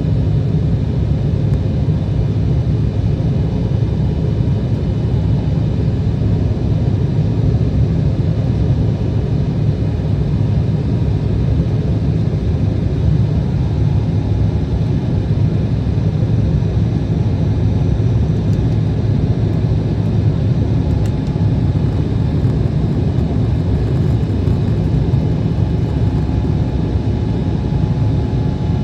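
Embraer E175 jet airliner heard from inside the cabin around takeoff: a loud, steady rumble and roar from the General Electric CF34 engines and airflow, with faint steady tones above it.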